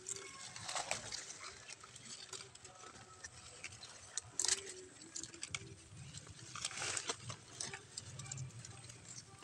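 Irregular rustling and crackling with scattered light snaps, like leaves and stems being handled while picking produce, with one sharper snap about halfway through.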